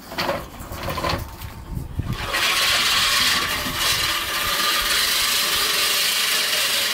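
American Lawn Mower 1304-14 14-inch five-blade push reel mower being pushed across the lawn. A few knocks come first, then from about two seconds in a steady whirring of the spinning reel cutting the grass.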